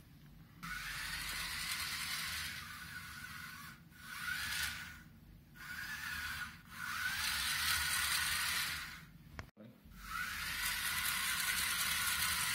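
Small DC gear motors of a four-motor Arduino robot car whirring in about five separate bursts as it is driven and stopped. Each burst carries a faint high whine that bends upward as the motors spin up.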